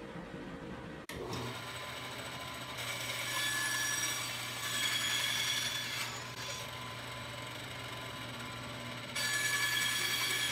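Band saw running with a steady motor hum, its blade cutting through half-inch Baltic birch plywood in three spells, the last near the end.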